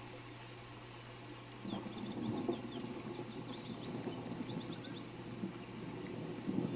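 Steady rain hiss; about two seconds in, a low rumble of thunder rolls in and keeps going. A bird chirps faintly in quick short notes through the middle.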